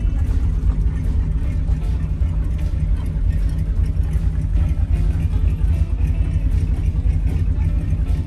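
An old car's engine running slowly, a steady low rumble with a quick even pulse, heard from inside the car's cabin.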